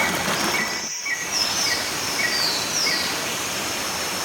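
Steady rush of a waterfall, with a series of short high chirps repeating about twice a second over it.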